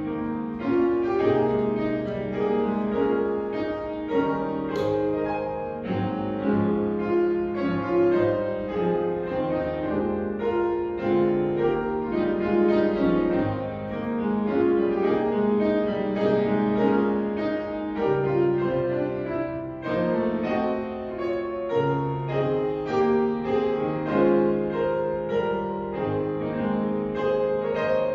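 Instrumental postlude music closing the service: slow, held chords with a melody over them, at an even, steady level.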